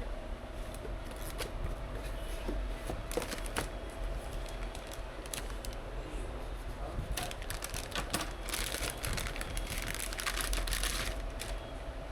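Crinkling, rustling and scattered clicks of things being handled, with a denser spell of crinkling about two-thirds of the way in, over a steady low hum.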